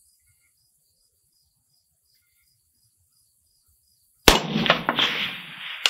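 A single shot from a suppressed Galil DMR rifle in 6.5 Creedmoor about four seconds in, a sharp crack followed by a long rolling echo that fades slowly. Faint crickets chirp steadily before the shot.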